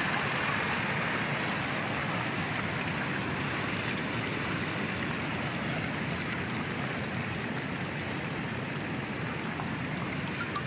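Debris flow of mud and stones moving down a valley channel, making a steady rushing noise of churning water and sliding rock.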